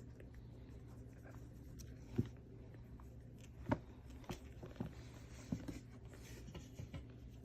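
Small kittens moving about in their box: soft scratching and rustling with a few light taps and clicks.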